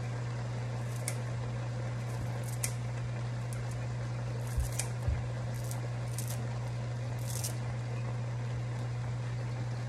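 Kitchen scissors snipping fresh dill into a pan, in short crisp snips scattered through, with a couple of soft bumps about halfway. A steady low hum runs underneath.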